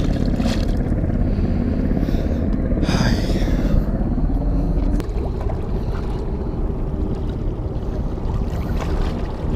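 A small splash as a released bass drops back into the water right at the start, over a steady low rumble that continues throughout.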